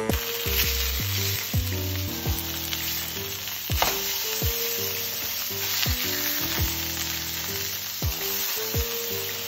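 Steaks sizzling as they sear in a hot nonstick frying pan, a steady hiss of fat spitting. Background music with short repeated notes and a regular beat plays underneath.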